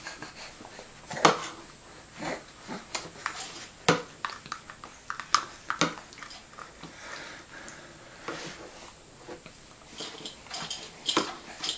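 Scattered light clicks and taps of a plastic baby spoon and a plastic cup against a high chair's plastic tray and a food container while a baby is spoon-fed.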